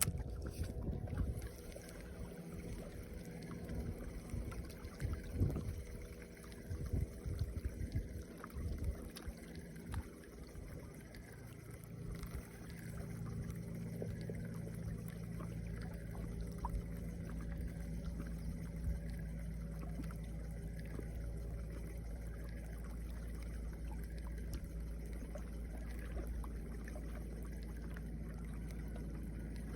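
Wind rumbling on the microphone by open water, with irregular bumps and gusts for about the first twelve seconds, then a steady low rumble.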